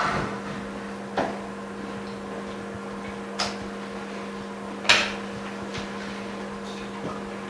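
Sharp clicks and taps as a phone's front glass part and a metal alignment mold are handled on the bench, roughly one every second or two, the loudest about five seconds in. A steady low electrical hum runs underneath.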